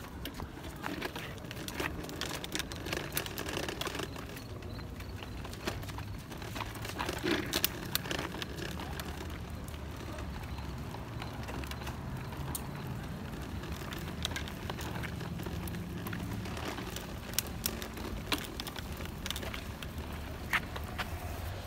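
Plastic wheels of a toddler's ride-on toy rolling over a concrete sidewalk: a steady low rumble with scattered clicks and knocks.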